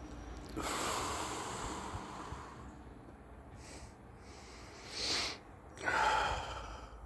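A person breathing close to the microphone: a long breath out starting about half a second in, then a few short sniffs and a louder breath near the end.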